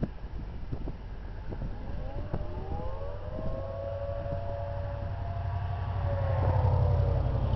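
Federal Signal tornado sirens (2001 and 2T22 models) winding up about two seconds in, several tones rising in pitch together and then holding steady, sagging slightly near the end, during a siren test. A steady low rumble runs underneath.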